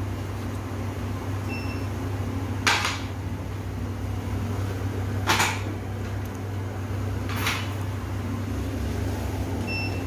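Dental air syringe hissing in three short bursts, a couple of seconds apart, over a steady low hum of clinic equipment, with two faint short beeps.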